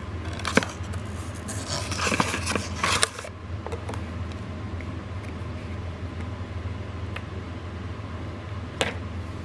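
Cardboard box and paper packaging being handled, with dense rustling and scraping for the first three seconds, then quieter with a few light taps and one sharp click near the end. A steady low hum sits underneath.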